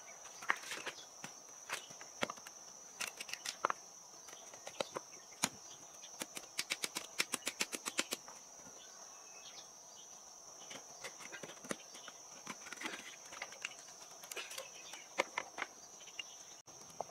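Hard clicks and knocks of mussel shells and loose stones against the rocks of a stony riverbank, scattered, with a quick run of about a dozen taps about six seconds in. A steady high insect buzz runs underneath.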